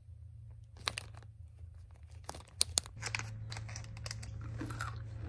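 Foil-lined snack pouch crinkling and rustling as a hand reaches into it for chocolate-coated chickpeas. There are sharp crackles about one second in and a few more around two and a half seconds, then a denser crackle toward the end.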